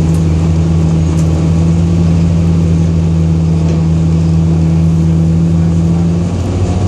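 City bus engine running, heard from inside the moving bus: a steady low drone whose pitch steps up a little near the end.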